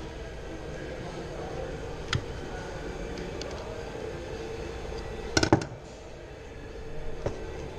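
Sharp plastic clicks and knocks as parts of a car's in-tank fuel pump and filter module are pressed together by hand: one about two seconds in, a loud quick pair or triple about five and a half seconds in, and a lighter one near the end. A faint steady hum runs underneath.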